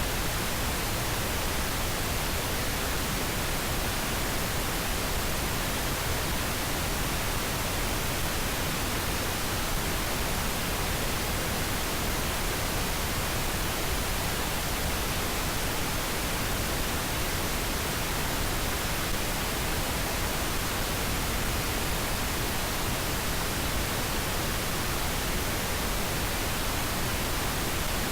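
Steady pink noise: an even, unbroken hiss across the whole range, with no changes.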